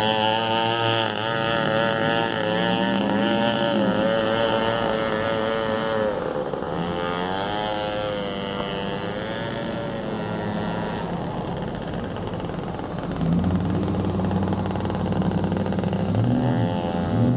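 Straight-piped 21.2 cc Echo two-stroke weed-eater engine running at speed in a radio-controlled boat, its pitch wavering up and down. It dips a little quieter through the middle, then grows louder again about two-thirds of the way through.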